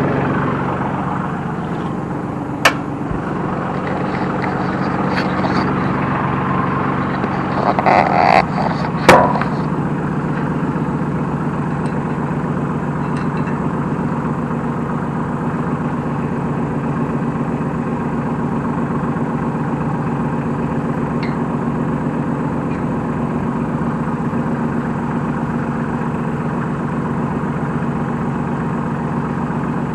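New Holland T1510 compact tractor's diesel engine idling steadily, with a sharp metal knock a few seconds in and a short cluster of knocks around eight to nine seconds in.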